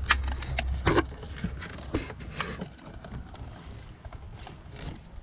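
Steel socket extensions and a swivel clinking and knocking together as they are fitted and worked down into a spark plug well, a string of sharp irregular clicks, loudest about a second in.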